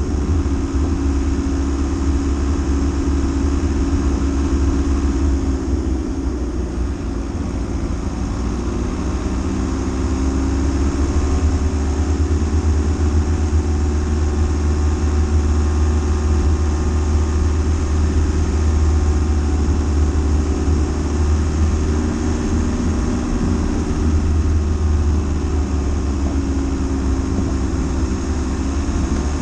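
Dacia Duster driving off-road: a steady low engine and road rumble.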